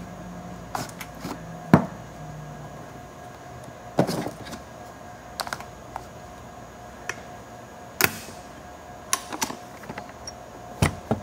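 Scattered clicks and knocks of a Panasonic Toughbook CF-29 rugged laptop's plastic and metal parts being handled: a side module pulled out, a side compartment opened and the machine turned over. About eight separate knocks, the loudest just under two seconds in.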